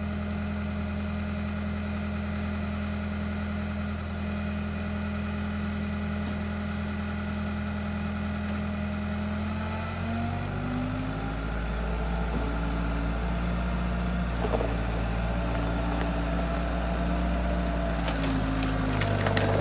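Bobcat skid loader engine running steadily, then about halfway through its note drops and grows louder as it takes load pushing into a cedar tree. In the second half the wood cracks and snaps repeatedly, most densely near the end, as the tree gives way.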